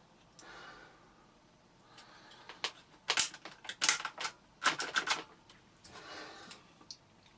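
Plastic vacuum cleaner casing parts being handled and fitted back together by hand: faint rustling, then several quick clusters of sharp plastic clicks and knocks in the middle.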